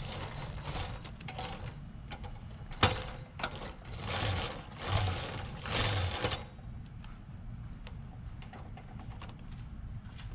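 Metal clicks and rattling of a minibike roller chain being handled as its master link and lock clip are fitted, with one sharp click about three seconds in and a stretch of louder rattling from about four to six seconds.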